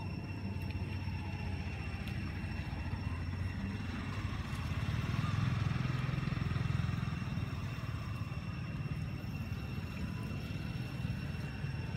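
Low rumble of a motor vehicle engine running in the background, growing louder a little before halfway through and easing off again, as if passing by. A thin steady high-pitched tone sits over it.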